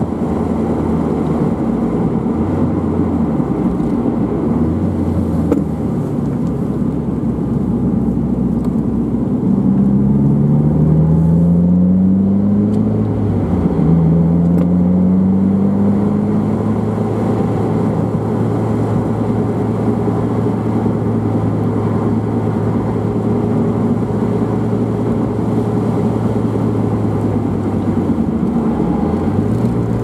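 2001 Mazda MX-5's 1.8-litre four-cylinder with a Jetex Fortex sport exhaust, heard from inside the car on the move over steady road noise. About a third of the way in the engine note rises twice in a row, with an upshift drop between, then it holds a steady cruising note, changing again near the end.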